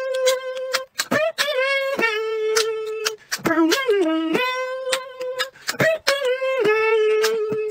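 Beatboxing: one voice holding long steady notes that dip in pitch now and then, cut several times by sharp mouth-percussion clicks and pops.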